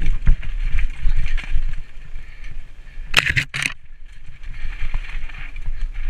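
Mountain bike rolling down a rough dirt trail: an uneven rumble with rattles from the tyres and bike over the ground. About three seconds in come two short, harsh scraping noises.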